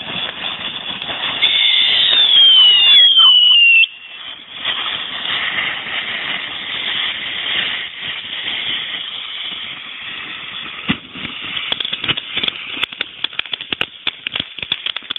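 Ground fountain firework hissing steadily as it sprays sparks. About two seconds in, two falling whistles rise above the hiss, and the loud part cuts off suddenly just under four seconds in. Crackling pops come thicker over the last few seconds.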